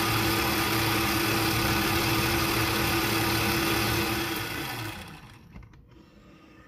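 Electric stand mixer's motor running steadily as its dough hook mixes flour, yeast and water in the bowl; it winds down and stops about four and a half seconds in.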